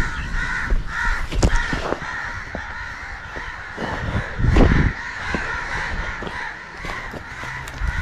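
Crows cawing over and over, with the low thumps and rustle of someone walking fast through grass; the loudest thump comes about four and a half seconds in.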